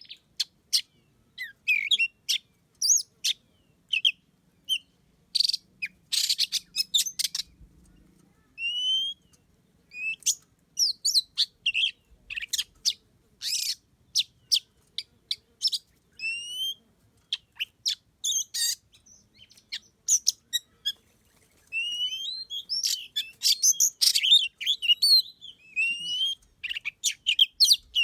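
Oriental magpie-robins calling: short rising whistles mixed with sharp clicky chirps, busiest and densest near the end.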